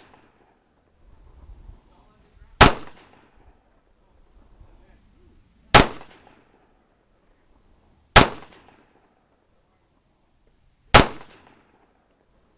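Four single gunshots fired at a slow, steady pace about two and a half to three seconds apart, each a sharp crack followed by a short echoing tail.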